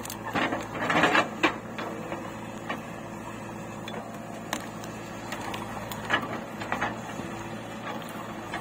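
JCB 3DX backhoe loader working: its diesel engine runs steadily while the backhoe bucket digs into soil and roots, with a burst of crunching and knocks about a second in and scattered knocks after.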